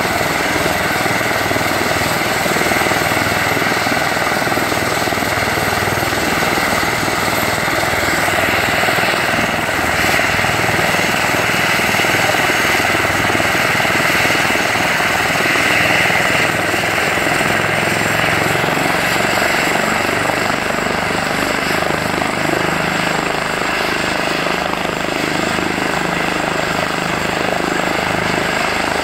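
Airbus EC145 T2 helicopter running on the ground, its twin turboshaft engines giving a steady high whine over the turning rotor. The whine grows stronger about a third of the way in, and a lower steady hum joins about two-thirds through.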